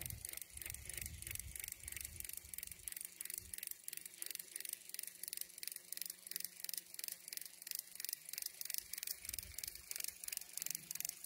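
Fishing reel being cranked to retrieve a lure, a steady train of rapid clicks, with a few soft low thumps from the boat.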